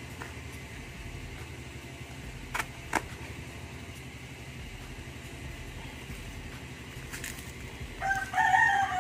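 Steady low hum with two sharp clicks, about two and a half and three seconds in, as a folding knife cuts through the parcel's packing tape and cardboard. A rooster starts crowing about eight seconds in, the loudest sound.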